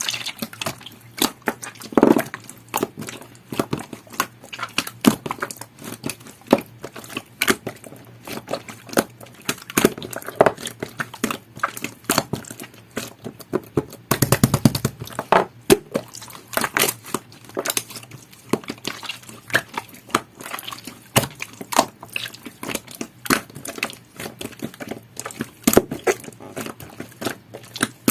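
Jelly-textured slime being squeezed and worked by hand, giving a steady run of irregular sticky pops, clicks and crackles.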